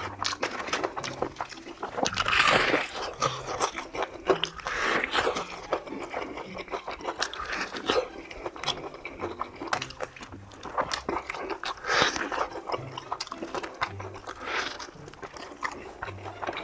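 Crispy fried chicken being bitten and chewed close to the microphone, a run of crunches with louder bites now and then, over light background music.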